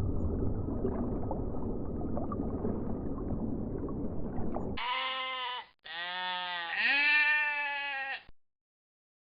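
A sheep bleats twice, a short call followed by a longer wavering one, after about five seconds of a low, rushing background noise.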